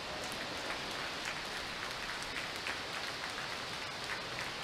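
Falcon 9 first stage's nine Merlin 1D engines at full thrust just after liftoff: a steady rushing noise shot through with irregular crackles.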